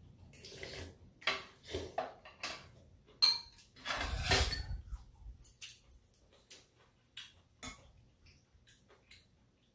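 Tableware clinking during a meal: a metal spoon and chopsticks tapping against bowls and a round metal serving tray in scattered clicks and knocks. There is a loud ringing clink about three seconds in and a heavier clatter just after; the clinks thin out over the last few seconds.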